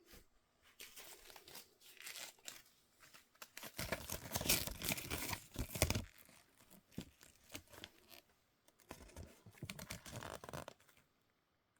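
Toy packaging being torn open and crinkled by hand, in irregular bursts of tearing and rustling, loudest for a couple of seconds near the middle.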